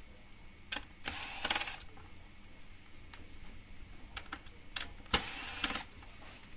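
Corded electric screwdriver run twice in short bursts of under a second each, about a second in and again about five seconds in, driving screws into a circuit board mount, with a few small clicks of the tool and screws between.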